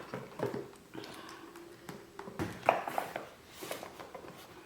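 Scattered light taps, clicks and rustles of cardboard product boxes being handled, with the sharpest click about two and a half seconds in.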